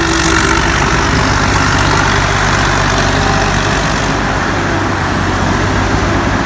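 Rice combine harvester running loudly and steadily, its engine and blower noise filling every pitch, with a thin high whine held on top.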